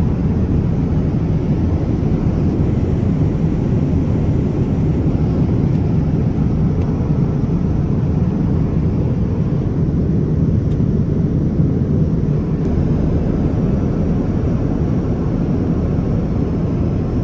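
Steady cabin noise of a Boeing 787 airliner in flight: an even, deep rumble of engines and airflow.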